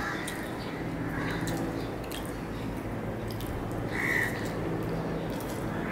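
Soft eating sounds of a man tearing luchi (puffed fried flatbread) by hand and chewing it, with faint wet mouth clicks, over a steady low electrical hum. A short higher-pitched sound comes about four seconds in.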